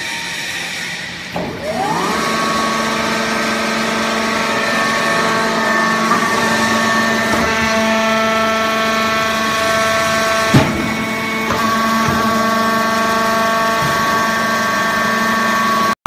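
Electric motor and hydraulic pump of a vertical baler starting up about a second in, the whine rising quickly in pitch, then running steadily with a hum under several whining tones. A single sharp clank comes about two-thirds of the way through.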